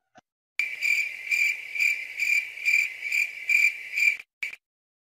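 Cricket chirping: a high, steady trill pulsing about twice a second for roughly three and a half seconds, then stopping.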